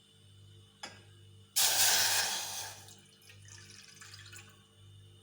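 Water poured from a cup into a saucepan: a light knock about a second in, then a sudden splashing pour that fades over about a second and a half, with fainter trickling after it.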